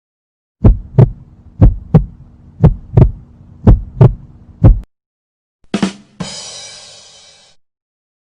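Heartbeat sound effect: deep paired lub-dub thumps, about one beat a second, five beats in all. Near the end a short click is followed by a fading hiss.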